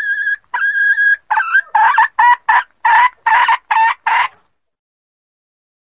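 Junglefowl hen calling: a held, pitched note, then a fast run of about eight short, loud clucking calls that stops about four and a half seconds in.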